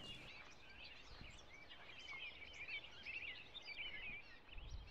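Faint birdsong: many short chirps and twitters from several birds, overlapping without a break.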